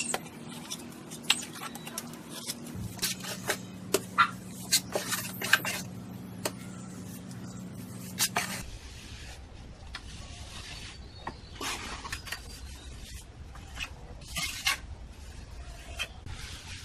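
Irregular sharp clicks and scrapes, dense for the first eight seconds or so and sparser after, over a steady low hum that shifts and then drops away.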